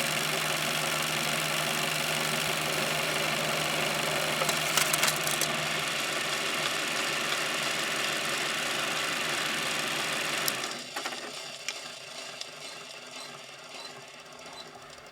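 An electric power tool running steadily with a low hum, then switched off about ten and a half seconds in and winding down, leaving quieter clicks and handling noise.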